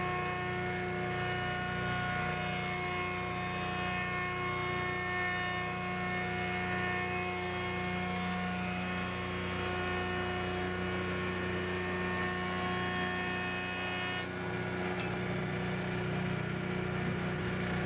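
Grizzly G0858 8-inch jointer with a helical cutterhead running steadily while a long white ash plank is fed across it. About 14 seconds in the cutting noise drops away as the board clears the head, and the machine runs on with a steady hum.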